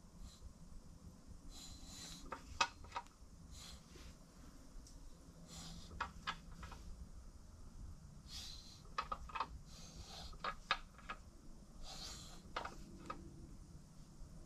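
Quiet, scattered light clicks and metallic knocks as a BMW crankshaft is turned slowly by hand in its end main bearings, with a cluster of ticks about nine to eleven seconds in. Soft breathing puffs come in between.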